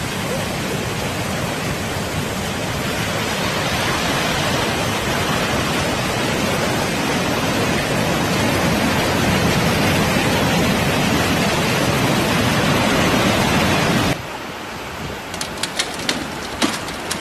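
Floodwater rushing in a torrent down stone steps, a loud steady rush of water. About fourteen seconds in it cuts to the quieter rush of a swollen flood river, with a run of sharp clicks near the end.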